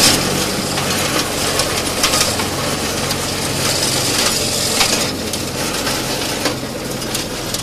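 Tractor engine running steadily, driving a tractor-mounted mulcher through its PTO shaft, with scattered sharp crackles and ticks of twigs and woody debris being chewed up.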